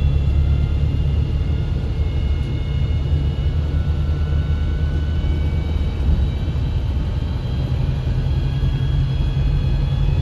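Cabin noise of a Volvo B5TL double-decker bus on the move: the steady low drone of its four-cylinder diesel engine and drivetrain, with faint high whines that slowly shift in pitch.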